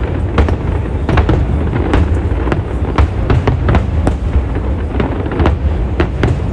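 Aerial fireworks shells bursting in quick succession: sharp bangs, a few a second, over a continuous low rumble.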